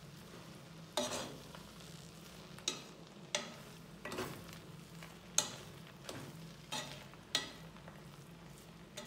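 Spatula stirring rice and chicken in a pressure-cooker pot, with soft, irregular scrapes and taps against the pot's side, roughly one a second.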